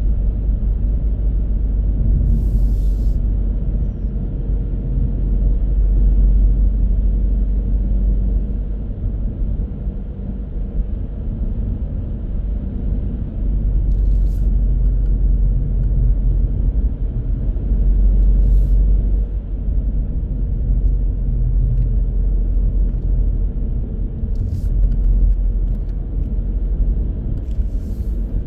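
A car being driven, heard as a steady low road and engine rumble that swells and eases every few seconds, with a few short faint clicks.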